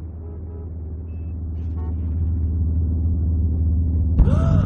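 Car engine running with a steady low rumble that grows gradually louder. Near the end a short sound with a swooping pitch cuts in.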